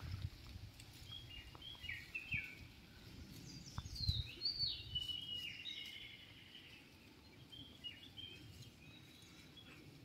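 Wild birds calling by a river: short chirping phrases with falling, stepped notes, in two clusters in the first half and a few fainter ones later, over a low rumble.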